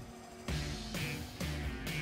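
Background music with a steady beat. Bass notes and drum hits repeat about twice a second, coming in about half a second in.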